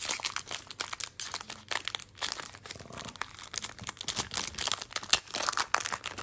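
Foil wrapper of a Pokémon trading-card booster pack crinkling in the hands and being torn open, a dense run of irregular crackles.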